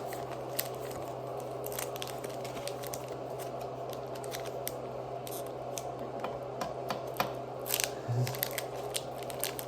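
Pokémon trading cards being handled and flicked through: a run of small, quick clicks and scrapes of card stock, with a louder scrape near the end.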